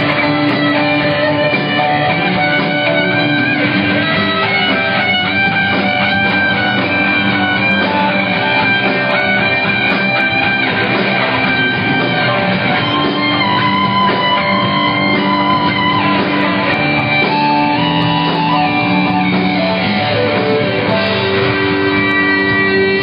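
Live rock band playing at full volume, with electric guitar to the fore, picked up by a phone microphone in the crowd so the sound is dull and lacks treble.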